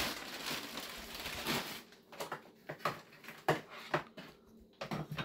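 A plastic sack of chunky orchid bark rustling and crinkling as it is handled for about two seconds, followed by scattered light clicks and knocks.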